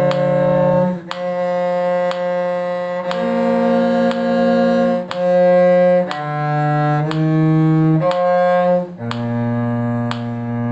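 Bowed strings in the cello range playing a slow beginner duet piece, held notes about one a second, with a lower and an upper part sounding together.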